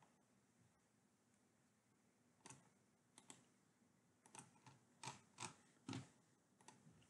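Faint, scattered clicks of a computer keyboard and mouse, about ten short clicks in irregular succession beginning a couple of seconds in.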